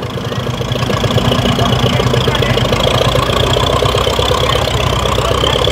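Vintage tractor engine running steadily, with an even firing beat, as one tractor takes up a chain to tow-start another.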